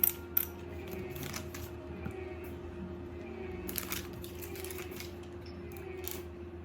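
Small model-kit parts being handled and fitted: two sharp clicks at the start, then a few short scratchy rustles over a steady low hum.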